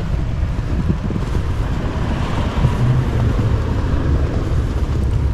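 Wind buffeting the microphone over a vehicle engine running, the higher noise swelling for a moment about halfway through.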